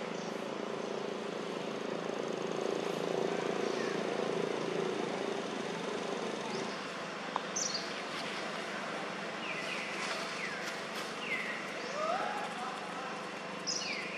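Outdoor ambience with a steady background hum, and several short, high chirping calls that fall in pitch, starting about halfway through and clustering near the end.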